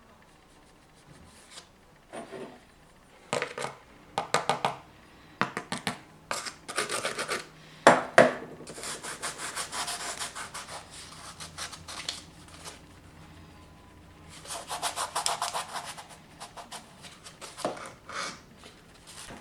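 Spells of quick back-and-forth rubbing strokes against a thin plastic lid, with a couple of sharp knocks about eight seconds in.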